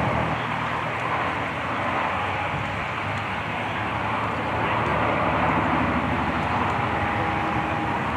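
A vehicle engine running steadily, with no shots.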